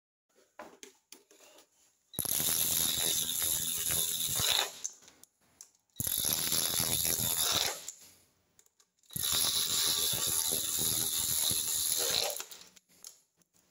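Socket ratchet clicking in three long runs as it spins nuts down onto the alternator stator studs.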